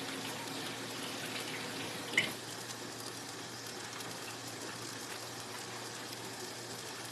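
Parmesan-dredged chicken pieces frying in a pan, a steady sizzle, with a light clink about two seconds in.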